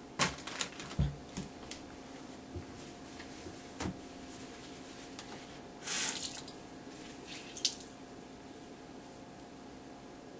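Small knocks and handling sounds at a bathroom sink, with a short splash of running tap water about six seconds in. A faint steady hum sits underneath.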